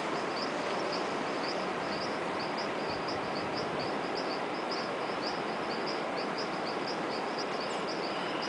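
Waterfall rushing in a steady, even roar of falling water, with a high chirping call repeated about three times a second over it.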